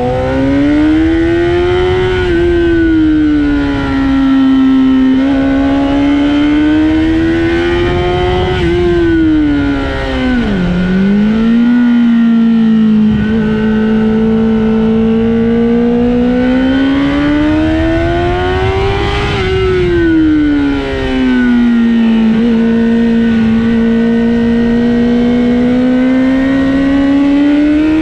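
Honda CBR1000RR Fireblade's inline-four engine running hard at high revs around a racetrack. Its pitch rises and falls slowly with speed, with a sharp dip and quick recovery about ten seconds in.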